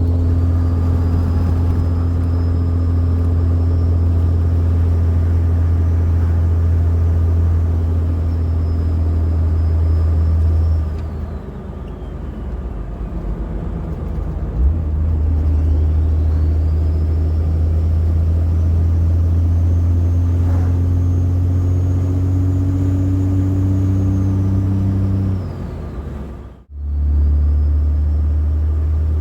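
Road noise from Cooper STT Pro mud-terrain tyres heard inside the cab of a 2006 Dodge Ram 3500 with a 5.9L Cummins diesel at light throttle: a loud, steady low drone. The drone eases for a few seconds about a third of the way in, and a faint high whistle rises and falls twice.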